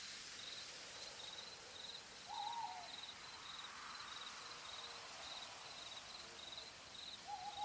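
Quiet forest ambience: an insect chirping steadily, about two or three high chirps a second, with two short hoots, one about two and a half seconds in and another near the end.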